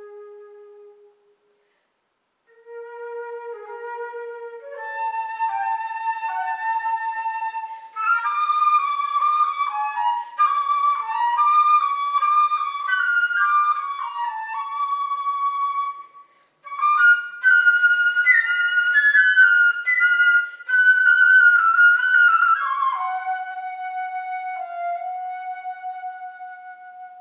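Solo flute playing: a low note dies away, and after a pause of about a second the melody climbs through phrases into fast, ornamented runs in the upper register. After a brief break it resumes with more quick runs, then settles on a long held note that fades out near the end.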